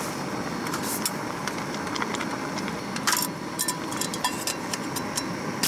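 Steady hiss of a lit camping gas burner. Over it, a sharp metal clink about three seconds in and several lighter taps after it, from the aluminium pot lid and a wooden spoon against the pot.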